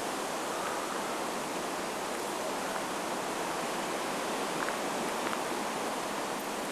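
Steady rushing water noise, even and unbroken, with a few faint ticks near the end.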